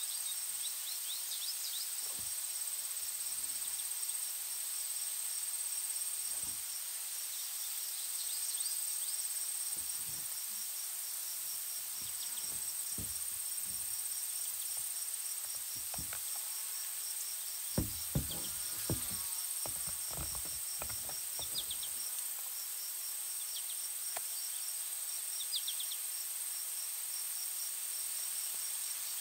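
Insects calling steadily: a constant high-pitched trill with a quicker pulsed chirping beneath it and a few short chirps now and then. About halfway through come a handful of low knocks, two of them sharp and close together.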